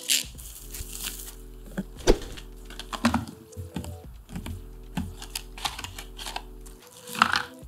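Packaging handled and opened: a plastic mailer bag and a small cardboard product box knocked, slid and rustled, making a string of sharp taps and clicks, the loudest about two seconds in, and a rustle near the end. Soft background music plays underneath.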